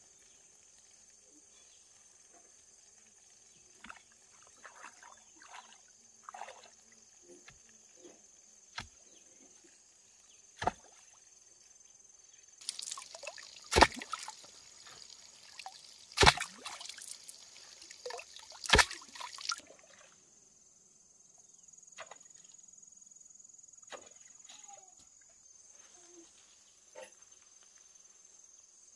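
Crickets chirping steadily, with a stretch of water pouring and splashing for several seconds about halfway through, punctuated by three loud splashes or knocks about two and a half seconds apart. Scattered light knocks and clatter.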